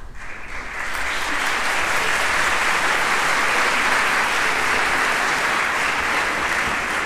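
A large theatre audience applauding: the clapping swells within the first second, then holds steady.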